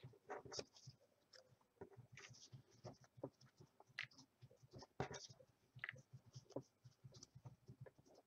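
Faint rustling and small taps of paper letter cards being handled and slipped into the cups of a cardboard egg box, with a few sharper clicks.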